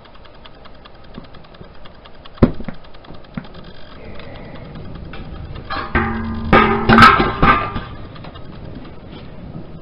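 Stainless steel conical fermenter shell knocked and handled on its rotator. There is a sharp knock about two seconds in, then a cluster of loud clanks with a ringing metallic tone over about two seconds, all over a faint steady crackling hiss from the lit oxyacetylene torch.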